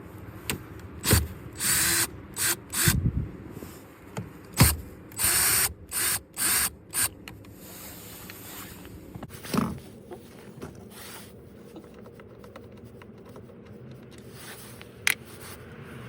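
A 10 mm socket tool running the F-150 mirror's mounting nuts off in a series of short bursts, with clicks and a knock. A single sharp click comes near the end.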